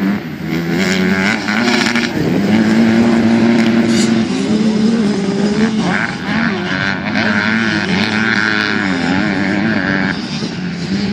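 Several Super Mini class motocross bikes racing, their engines revving up and dropping off over and over as the riders work the throttle.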